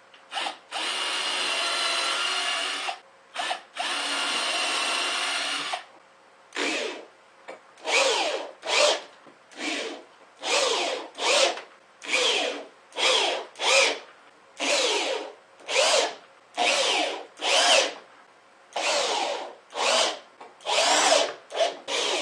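Power drill driving wood screws through a plywood back panel into a 2x2 wood frame. It runs twice for a couple of seconds at a steady speed, then gives a string of short trigger pulses about one a second, the motor whine rising and falling with each pulse as the screws are run home.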